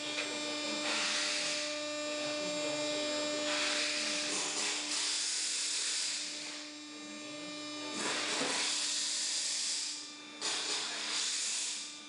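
Marathon 6030 vertical hydraulic baler's 10 HP electric motor and hydraulic pump running with a steady hum, under a rushing hiss that swells and fades about five times, each surge lasting one to two seconds.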